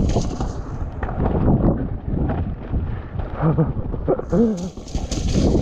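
Commencal Clash enduro mountain bike riding down a wet, muddy, rocky trail: tyres rolling and churning through mud, with the bike knocking and rattling over rocks and roots. Wind buffets the microphone throughout.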